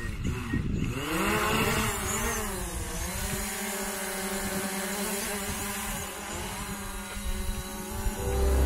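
Small camera drone's propellers whirring, the pitch wavering up and down as the motors change speed. Background music comes in near the end.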